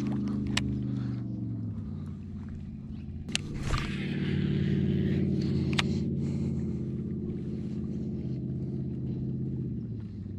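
Small outboard motor on a small fishing boat running; it slows down about a second and a half in, picks back up a couple of seconds later and then runs steadily. A few sharp clicks and knocks sound over it.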